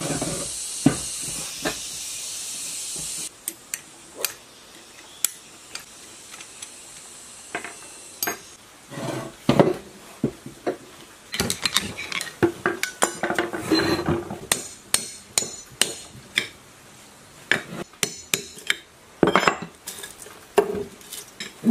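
Metal parts of an old electric motor being handled and fitted together on a wooden workbench: irregular clinks and knocks of the cast housing and end cap. A steady hiss runs for the first three seconds and cuts off suddenly.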